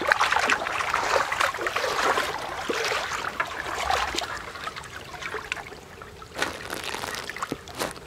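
Shallow river water splashing and sloshing as a mesh landing net and hands work through it, busiest in the first half, with a couple of sharp splashes near the end.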